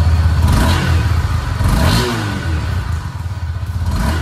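2023 Honda CB300F's oil-cooled single-cylinder engine idling through its stock exhaust, blipped twice on the throttle, about half a second and two seconds in, each rev rising and falling back to idle.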